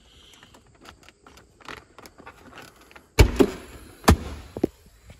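Padded center console armrest lid of a 1984 Corvette being handled: faint rustling and clicks, then two loud thumps about a second apart past the middle, with a lighter knock just after, as the lid is let fall shut.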